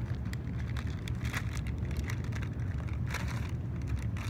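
Scattered crackling and rustling handling noises, many short clicks in irregular succession, over a steady low rumble.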